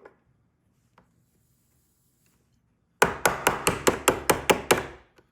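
Small hammer tapping quickly: about a dozen sharp light strikes in two seconds, roughly six a second, beginning about three seconds in. A single faint tap comes about a second in.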